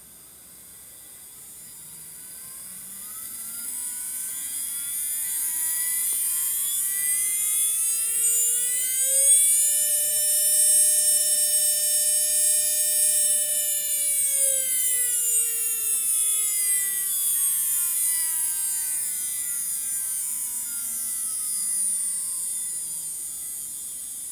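TOMIX M-9 N-gauge model-train motor, fitted with a swapped rotor, running on test. Its whine rises in pitch over the first nine seconds or so, holds steady for about four seconds, then falls away, with a high hiss over it. It runs without any large abnormal noise: a running sound judged fine after the rotor swap.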